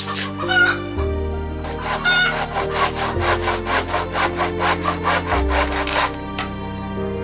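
Hand saw cutting wood in quick, even strokes, about four or five a second, stopping about six seconds in, over background music with long held notes.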